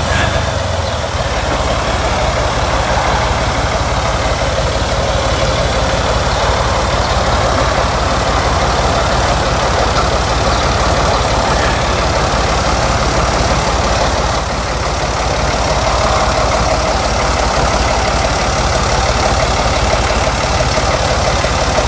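Farm tractor engine running steadily, with a fast, even low pulsing, as the tractor drives carrying a load on its front-end loader.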